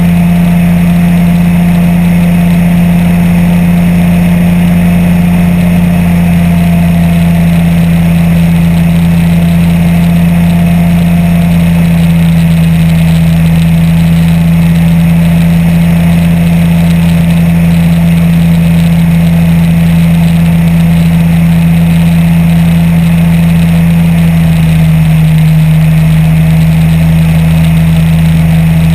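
Apollo Jet Star microlight trike's engine and pusher propeller droning steadily in level flight, loud and even. About 24 seconds in, the pitch dips slightly and stays lower.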